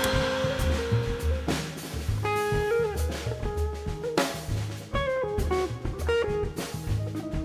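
Jazz quartet playing: a hollow-body electric guitar plays a single-note melodic line over bass and a drum kit, with snare, kick and cymbal strokes.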